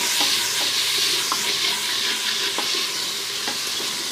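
Onion-tomato masala with yogurt sizzling in ghee in a metal pot while a spatula stirs it, with a few light scrapes and taps against the pot. The yogurt's water is being cooked off.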